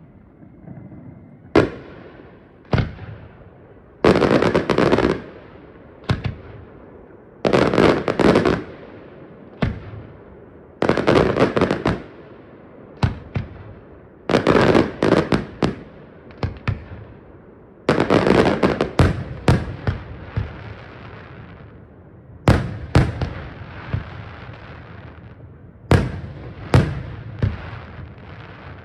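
Aerial fireworks shells bursting with sharp bangs, some singly and some in rapid salvos lasting about a second, each followed by a fading rumble.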